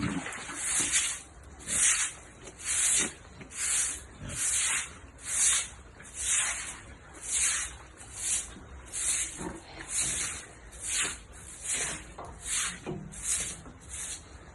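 Rhythmic scraping strokes in a steady back-and-forth rhythm, a little more than one a second, growing slightly quicker near the end, like a stiff brush or scraper worked over a hard floor.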